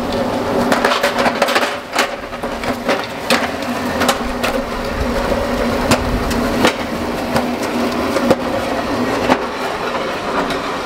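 Pallet jack rolling a crated engine over a concrete driveway: hard wheels clattering, with many irregular clicks and knocks, over a steady low hum.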